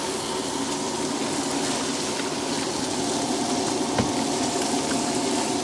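Burger patties and eggs sizzling steadily in pans on a two-burner propane camp stove, with a single sharp click about four seconds in.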